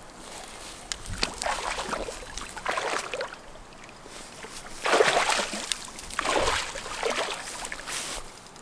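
Water splashing in irregular bursts as a hooked muskie thrashes at the surface beside the boat, the loudest splashes about five and six and a half seconds in.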